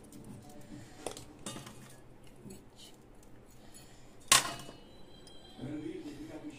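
Stainless-steel kitchen utensils clinking as the small bowls of a steel spice box are handled: a couple of light taps, then one sharp metallic clank about four seconds in.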